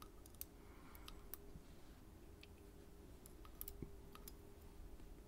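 Faint, scattered small clicks, about a dozen spread unevenly, over a faint steady hum. These are the pins and small parts of a disassembled Schlage Everest C123 pin-tumbler cylinder being handled as they are checked.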